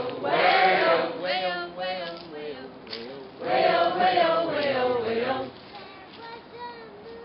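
A group of voices singing together, in phrases with short breaks between them.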